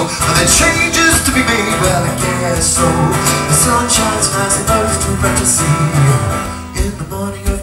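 Male voice singing over a strummed acoustic guitar in a live solo folk song.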